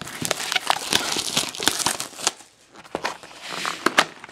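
Plastic wrapping on a sealed box of trading cards crinkling and tearing as hands open it, a dense run of irregular crackles with a short lull about halfway through.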